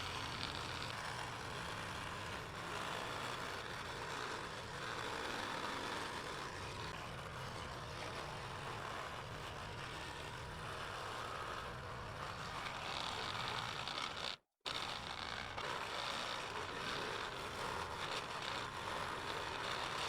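Scroll saw running and cutting through 6 mm moisture-resistant MDF, a steady buzzing rasp of the reciprocating blade, broken by a split-second gap about two-thirds through.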